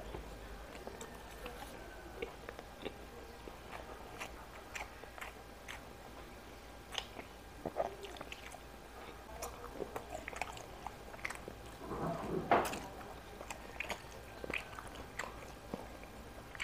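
Close-up chewing and biting of a person eating rice and fried fish by hand: irregular wet mouth smacks and small crunches, with one longer, louder burst about twelve seconds in.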